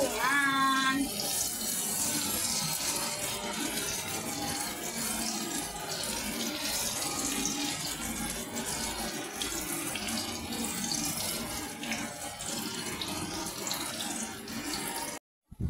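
Egg-coated eggplants frying in hot oil in a pan: a steady sizzle with fine crackling, which cuts off suddenly near the end.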